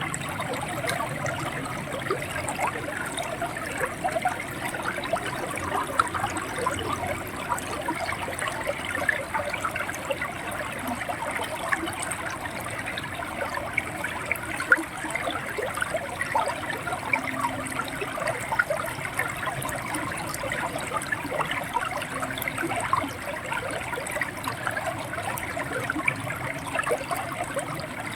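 Shallow river water running and gurgling over stones, a steady rush with many small splashes and bubbling trickles.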